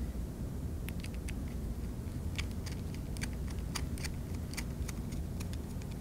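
Flat-blade screwdriver turning a small machine screw into a DB9 connector's metal backshell: faint, irregular metal ticks and light scrapes as the screw is driven in.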